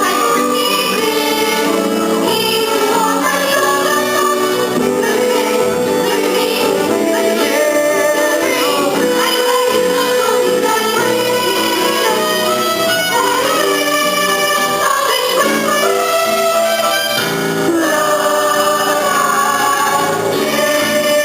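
Youth theatre cast singing a musical-theatre song live, with instrumental backing.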